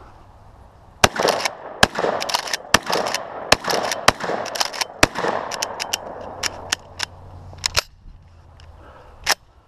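Shotgun fired in a rapid string of shots, with echo between them, from about a second in until about eight seconds in, followed by a couple of isolated sharp clicks or bangs.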